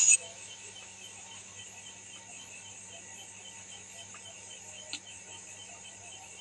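Night insects, crickets among them, chirping steadily in a fast pulsing rhythm, over a faint steady low hum. A short sharp click right at the start is the loudest sound.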